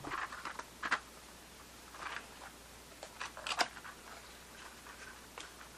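Cardboard box of Magtech .380 ACP cartridges being opened by hand: a few scattered scrapes and clicks as the flap is folded back and the tray slid out, the sharpest about three and a half seconds in.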